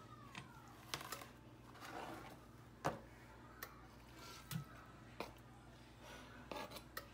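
Light clicks and knocks of a plastic cutting board and utensil handled at a stovetop skillet as raw chicken strips are slid off the board into melted butter in the pan, over a low steady hum.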